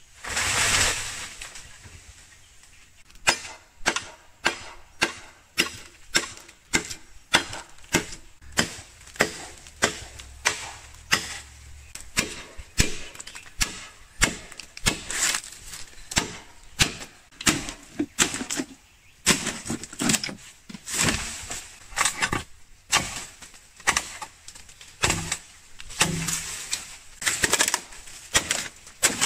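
A machete chopping green bamboo culms: sharp strikes, about one to two a second in irregular runs. It opens with a brief rush of leaves and stalks.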